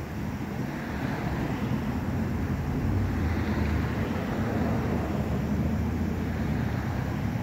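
Low, steady vehicle rumble that swells a little toward the middle and eases slightly near the end.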